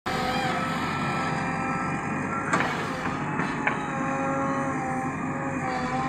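JCB 3DX backhoe loader's diesel engine running steadily as it works, with a whine over it, and two sharp metallic clanks: one about two and a half seconds in and another a second later.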